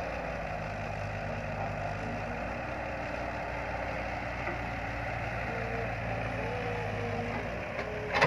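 Caterpillar 312 hydraulic excavator's diesel engine running steadily while it digs and swings a bucket of soil. A sharp knock comes near the end.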